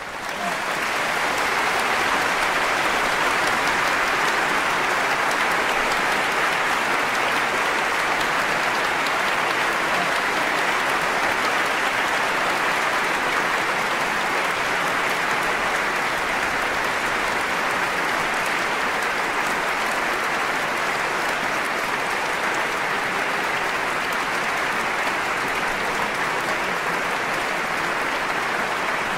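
Large audience applauding in a concert hall, swelling up within about a second and then holding steady.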